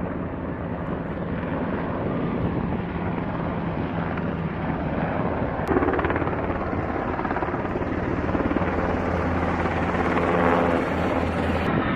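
Aircraft engine noise at an airshow: a continuous drone with a steady low hum. A sharp click comes a little before the middle.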